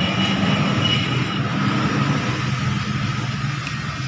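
A vehicle engine running steadily: an even low hum.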